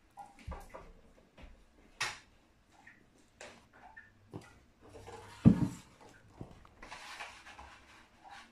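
Scattered small knocks and clicks of things being handled and set down on a table, with one loud thump about five and a half seconds in and a brief rustle a little later.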